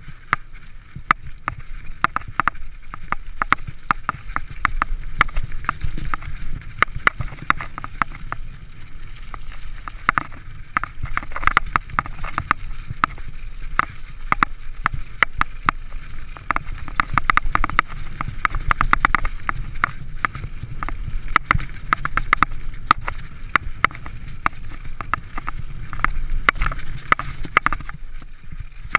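Mountain bike riding a bumpy dirt singletrack: a steady low rumble of tyres and wind under a constant, irregular rattle of clicks and knocks from the bike.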